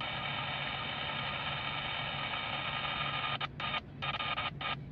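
A radio transmission through a small speaker: a hissing burst carrying several steady tones that switches on abruptly, cuts in and out a few times near the end, then stops. A low steady hum of an idling engine runs underneath.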